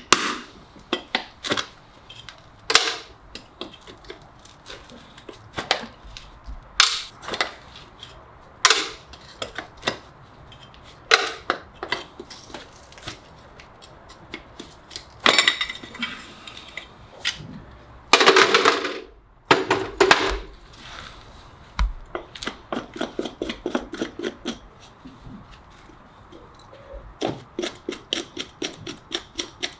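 Farrier's hand tools working on a horse's hoof: a string of sharp clicks and snips, with two longer scraping strokes about halfway through and a quick run of small clicks near the end.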